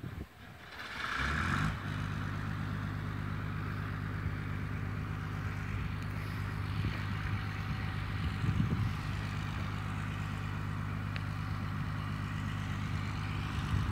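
A steady engine or motor hum that builds up over the first second and a half, then runs evenly.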